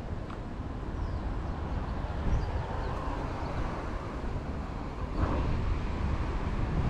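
Steady outdoor ambience with a low rumble, like passing traffic or wind on the microphone, heard while walking along a city street.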